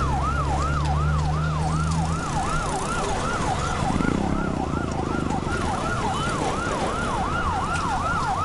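Emergency vehicle siren on a fast yelp, its pitch sweeping up and down about two and a half times a second.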